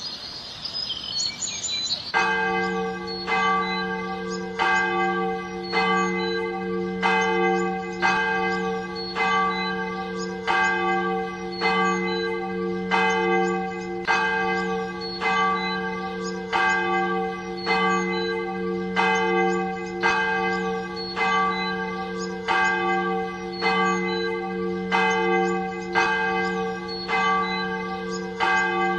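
Church bells ringing, starting about two seconds in and struck over and over a little under once a second, the tones overlapping into a continuous ringing, with a louder stroke about every two seconds.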